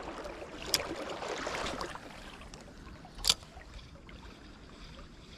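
Rushing river water, fuller for the first two seconds and then softer, with a light click under a second in and a louder, sharp click a little after three seconds.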